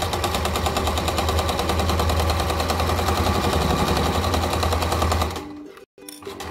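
Old domestic electric sewing machine stitching a seam through cotton fabric at speed: a motor hum under a rapid, even clatter of the needle. It slows and stops briefly just after five seconds in, then starts stitching again near the end.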